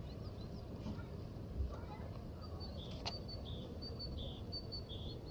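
Small songbird singing a repeated two-note phrase, a thin high note then a slightly lower one, about four times in the second half, after a few scattered chirps. A steady low rumble runs underneath, and a single sharp click comes about three seconds in.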